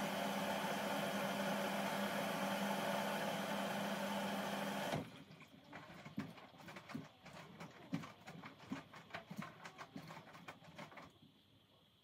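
Hoover H-Wash 350 front-loading washing machine mid-wash on a cotton cycle. A loud steady machine hum cuts off about five seconds in. Then come irregular light knocks and splashes as the towels tumble in the turning drum, dying away near the end.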